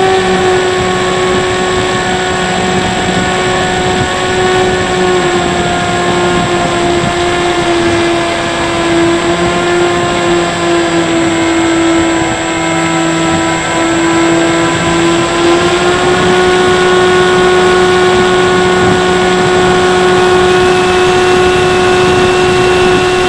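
Bixler 3 RC plane's electric motor and propeller whining steadily, heard close up from a camera on the plane over a rush of wind noise. The pitch sags slightly through the middle and rises again about two-thirds of the way through.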